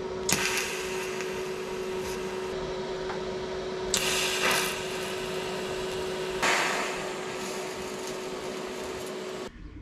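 TIG welding arc: a steady hiss with an even hum under it, swelling louder twice, about four and six and a half seconds in, and cutting off near the end as the arc is broken.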